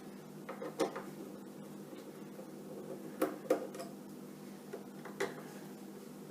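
Scattered small metallic clicks and taps of a screwdriver working on the light fixture's screws, about five in all, over a faint steady hum.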